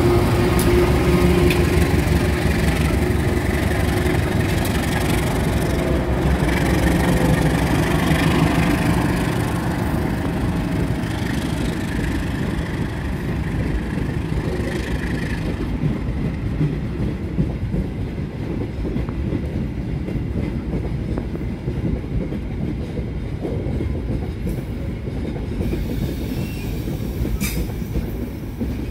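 Diesel-electric locomotive moving a train on the station tracks during shunting, its engine droning steadily with the rumble of the train. Loudest for the first ten seconds or so, then growing quieter as it moves away.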